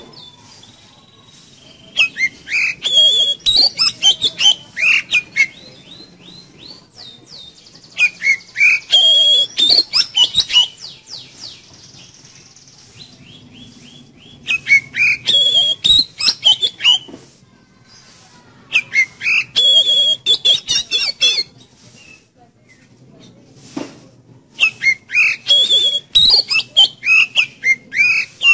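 Oriental magpie-robin (kacer) singing loud, rapid phrases of whistled and chattering notes. The song comes in five bouts of two to three seconds each, with short pauses between them.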